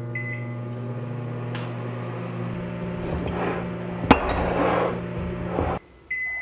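Microwave oven running with a steady hum as it reheats soft plastic, started with a short keypad beep. A sharp clink about four seconds in; the hum cuts off near the end and the oven's first end-of-cycle beep sounds.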